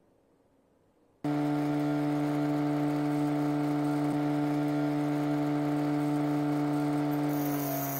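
A 12 V permanent-magnet DC motor bench grinder comes in abruptly about a second in, already at full speed, and runs with a steady hum. Near the end a rusty steel scissor blade is pressed to the grinding wheel: a high grinding hiss starts and the motor's pitch drops slightly under the load.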